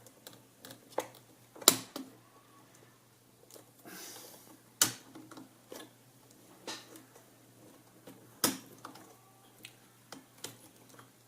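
Small sharp clicks and taps of hands fitting a gear into a flip clock's motor mechanism, with three louder clicks about three seconds apart.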